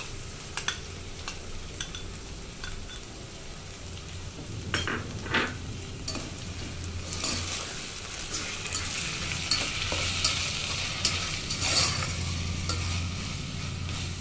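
Diced potatoes and a wet onion paste sizzling in oil in a stainless steel pan while a slotted metal spatula scrapes and knocks against the pan, stirring the paste in. The sizzle grows louder about halfway through as the paste is worked into the hot oil.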